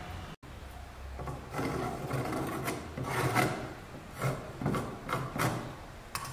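Steel dividers scribing a circle on the end grain of a wooden block: the point scratches the wood in a series of short scraping strokes.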